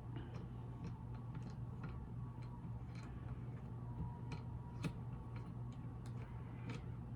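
Faint, irregular light clicks of hands handling an oscillating multitool and its metal blade while the old blade is taken off, over a low steady hum.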